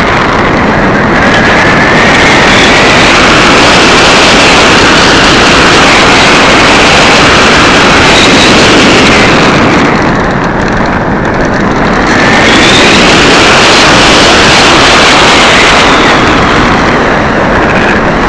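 Loud, distorted wind rush mixed with the whine of an electric RC glider's brushed motor and propeller, picked up by the camera on board. The whine wavers in pitch, drops out for a couple of seconds about ten seconds in, then comes back higher and slides down.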